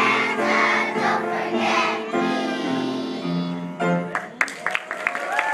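A group of kindergarten children singing together with music, ending about four seconds in; the audience then starts clapping.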